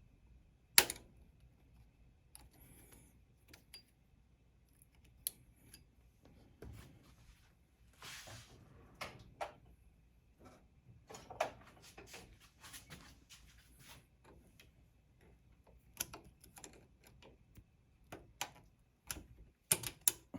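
Scattered metallic clicks, taps and short scrapes of hand tools working a snap ring off a motorcycle's pivot bolt. The sharpest click is about a second in, with a cluster of clicks near the end.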